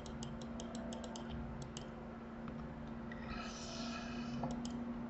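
Escape key on a computer keyboard tapped over and over, a quick run of about a dozen clicks in the first two seconds, then two more clicks near the end. A brief soft hiss comes between them, over a faint steady hum.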